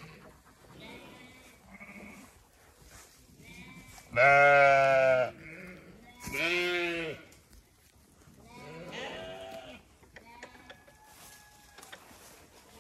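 Zwartbles sheep bleating three times: a loud bleat about four seconds in, a second soon after, and a softer, wavering one a couple of seconds later.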